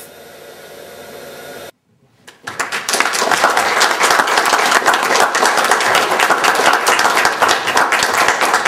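An audience clapping, starting about two and a half seconds in after a faint hiss and a brief silent gap, and going on steadily.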